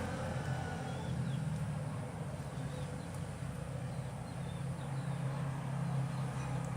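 A steady low hum with faint, scattered bird chirps over it.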